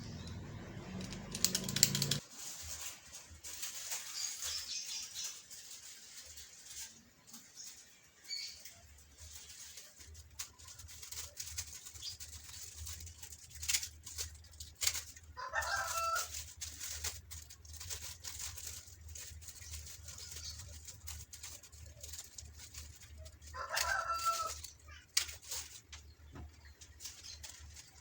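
Chickens clucking in two short bouts, about fifteen and twenty-four seconds in, over scattered clicks and rustling.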